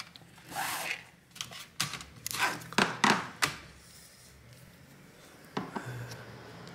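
Light knocks, clicks and a short scrape as a removed laptop DVD drive and a screwdriver are handled and set down on a workbench. The clatters are loudest between about two and three and a half seconds in, then one faint tap comes near the end.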